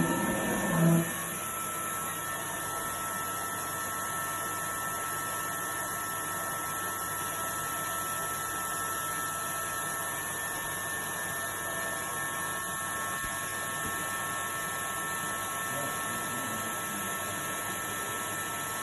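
IMA Quadroflex CNC machining centre running during its reference (homing) run: a steady machine whine made of several high tones over an even hiss.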